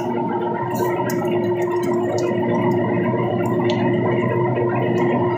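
Oil expeller machine running with a steady hum, while freshly pressed oil streams into the collecting tray with a gurgling, churning sound. Scattered light clicks sound over the top.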